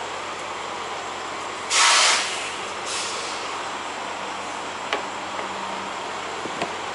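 A semi-truck's air brakes let off a sharp burst of air hiss lasting about half a second, followed by a fainter second puff about a second later. Under it is the steady background noise of idling trucks and wind, with a couple of light clicks near the end.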